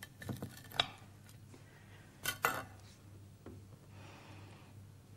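Kitchen knife clinking and scraping against ceramic plates a few times as slices of nut roast are cut and lifted onto a serving plate; the loudest clatter comes a little over two seconds in.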